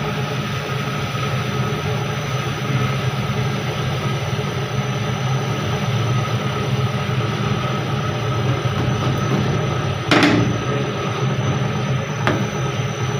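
Stainless-steel boiler-mixer running with a steady motor hum. A sharp knock comes about ten seconds in, and a lighter click near the end.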